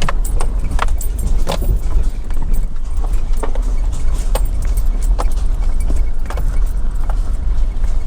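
Vehicle driving on a rough unsealed forest road: a steady low rumble with frequent irregular clicks and rattles over the bumps.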